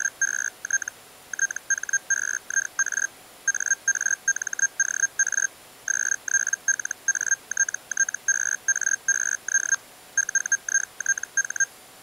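Feld Hellschreiber text signal: a single audio tone keyed on and off rapidly at 122.5 baud, amplitude-shift keying that sends each character as a scanned graphic image. It comes as quick chopped bursts, one per printed character, with short pauses between words.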